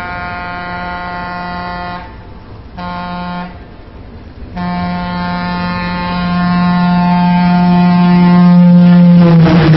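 Train-style horn blowing in blasts: a blast ending about two seconds in, a short toot, then a long blast that grows louder and drops in pitch as it cuts off near the end.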